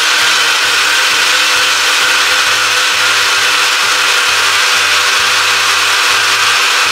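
Vitantonio personal blender running steadily at full speed, its motor whirring as the blades purée boiled broad beans with liquid into a smooth soup.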